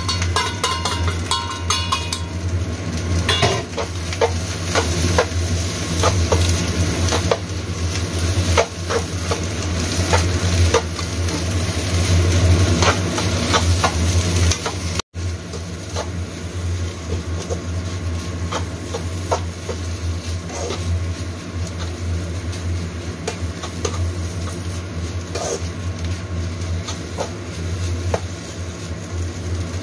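Egg fried rice being stir-fried in a nonstick pan: a metal spatula scraping and tapping against the pan over a light sizzle. A steady low hum runs underneath.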